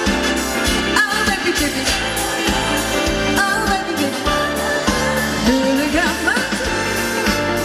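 A woman singing a pop ballad live into a handheld microphone over amplified backing music with a steady beat.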